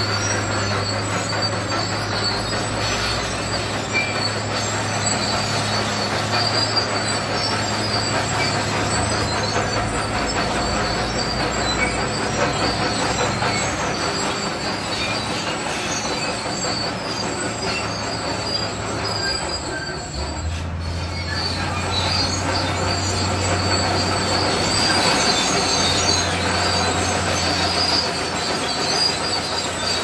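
Crawler bulldozer working over rock fill: its diesel engine runs steadily under a continuous clatter and squeal of steel tracks. The engine note drops a little about two-thirds of the way through.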